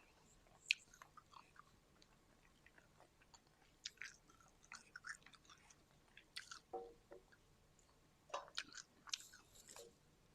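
Faint, irregular chewing and mouth sounds of people eating sushi, in short separate bursts.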